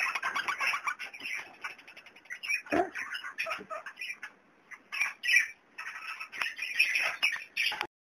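Kakariki parakeets chirping and chattering in rapid runs of short, high calls, with a brief thump about three seconds in.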